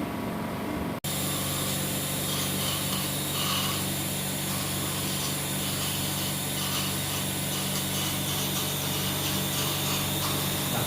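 Steady whir and hiss of a powered surgical instrument running continuously, cutting in abruptly about a second in.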